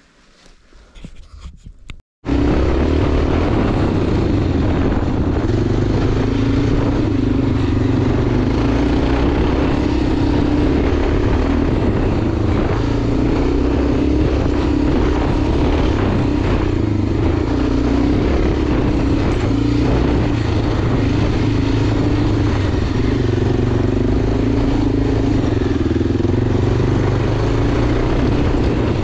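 Enduro motorcycle engine running steadily under way, with a steady rushing noise over it. It starts abruptly about two seconds in, after a quieter stretch.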